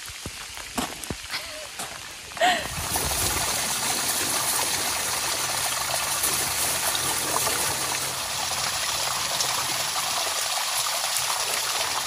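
Light rain with scattered drops striking close by for the first couple of seconds. Then a small waterfall trickles steadily, splashing into a rocky pool.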